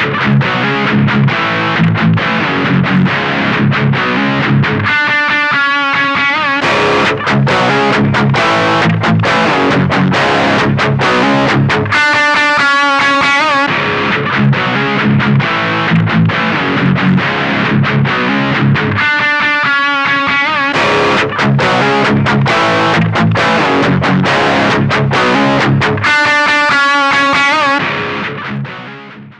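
Distorted electric guitar played through a mini guitar amp: a riff of low notes with a higher phrase that comes back about every seven seconds, fading out at the end.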